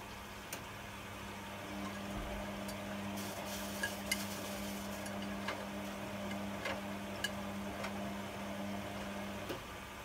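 Hotpoint Aquarius Extra WMA46P washing machine in its rinse stage, its drum motor turning the wet load with a steady hum that starts about two seconds in and stops shortly before the end. Water sloshes and the load clicks and splashes against the drum.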